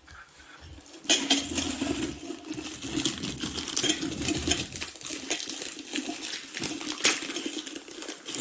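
Rapid small knocks and clattering of a miniature ural (mortar) and pestle being worked, starting about a second in and continuing as a busy run of taps.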